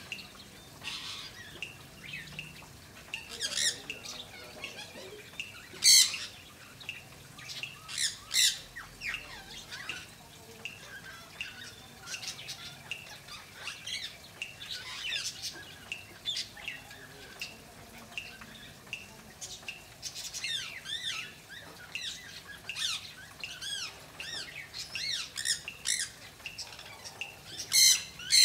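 Pet birds chirping and squawking over and over, with loud, sharp squawks about six and eight seconds in and again near the end.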